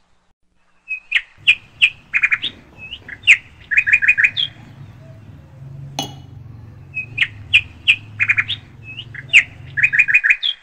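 A bird chirping in quick clusters of short, high chirps, some in runs of three or four, with a low, faint hum underneath for most of the time and a single sharp click about six seconds in.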